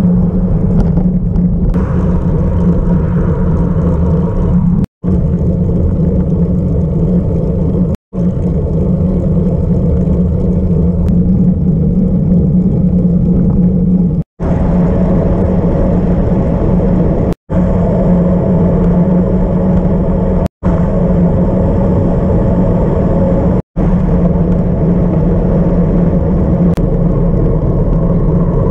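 Steady wind noise on a bicycle-mounted camera's microphone while riding a road bike at speed. The sound drops out briefly about every three seconds where short clips are spliced together.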